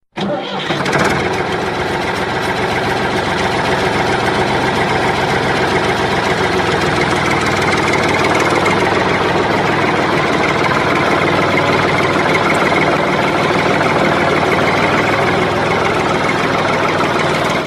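Tractor engine running steadily, starting suddenly and cutting off suddenly at the end.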